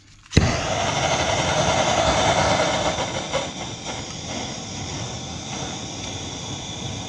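Plumber's gas soldering blowtorch lit with a sharp click about a third of a second in, then its flame hissing steadily as it heats a copper reducer for soldering; the hiss eases down a little about three seconds in.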